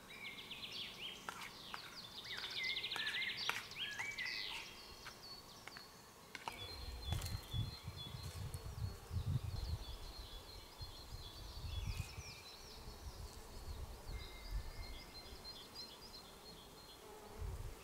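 Small birds singing in pine woodland, busiest in the first few seconds with fast trills and chirps, fainter calls afterwards. From about six and a half seconds in, a low, uneven rumble runs under the birdsong.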